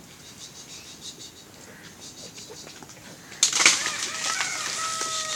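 A sudden loud rustle about three and a half seconds in, then a dog whining in high, steady, drawn-out tones.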